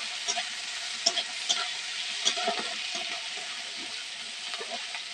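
Chopped onions, green chillies and cashews sizzling in hot oil in a metal kadai, stirred with a metal spatula that scrapes and ticks against the pan now and then.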